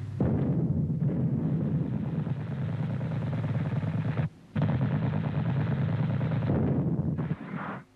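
Rapid machine-gun fire in two long runs, broken by a short pause about halfway through.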